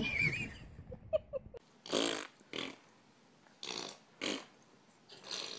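A brief whimper from a fussing baby at the start, then a series of short, breathy vocal noises, about five in three and a half seconds, from a person playing face to face with a baby.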